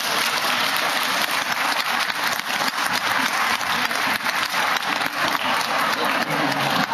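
Audience applauding, many hands clapping at once, with crowd voices murmuring underneath.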